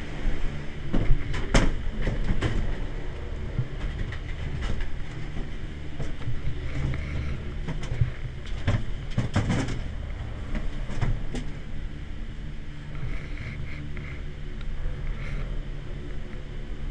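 Station machinery of a Doppelmayr detachable gondola running with a steady low hum. The cabin gives several sharp clattering knocks as it is boarded and rolls through the station.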